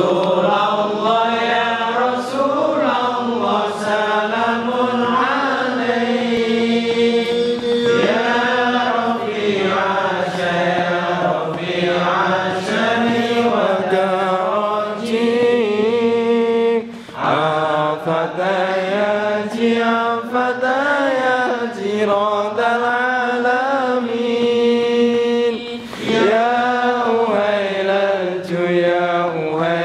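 A group of men chanting Islamic devotional verses together in a slow, melodic unaccompanied chant, with long held and bending notes and short breaths about 17 and 26 seconds in.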